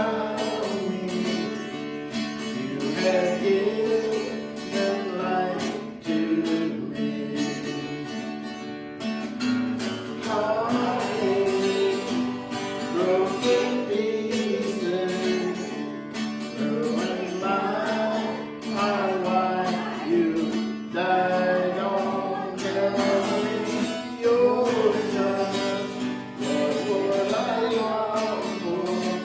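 Worship music: a strummed acoustic guitar accompanying singing.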